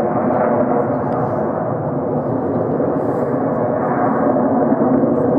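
Jet engine noise from Blue Angels F/A-18 Hornets flying nearby: a loud, steady noise with a faint tonal hum in it and no clear rise or fall.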